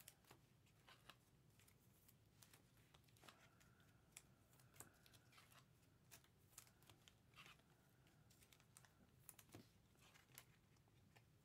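Near silence, with faint scattered clicks and taps from trading cards being handled.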